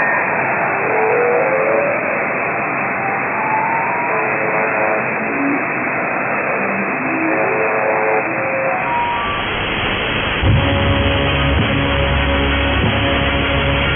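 Shortwave receiver in single-sideband mode on the UVB-76 'Buzzer' frequency, giving static hiss overlaid with a jammer's short warbling tones that hop and glide in pitch. About nine seconds in, the receiver switches to the Mike Radio AM broadcast, and music with a strong bass comes through over the static.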